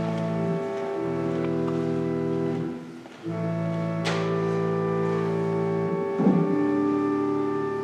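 Organ playing slow, sustained chords that change every few seconds, with a brief break about three seconds in. A single sharp click sounds about a second after the break.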